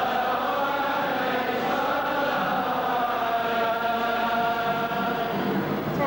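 Many voices chanting a slow liturgical hymn in unison, with long held notes that glide gently in pitch.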